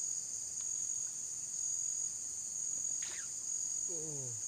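Steady, high-pitched chorus of insects, such as crickets, shrilling without a break. About three seconds in comes a brief faint falling whistle, and near the end a short falling vocal sound.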